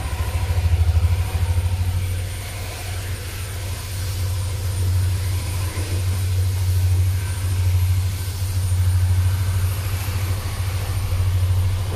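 Yamaha Aerox 155 VVA scooter's 155 cc single-cylinder engine idling steadily with a low hum, run for a few minutes just after an oil change.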